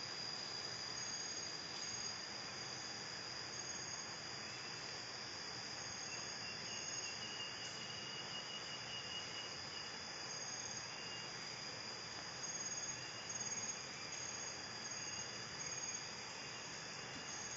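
Chorus of insects calling: a steady high-pitched drone with short trills that repeat on and off, over a constant even hiss.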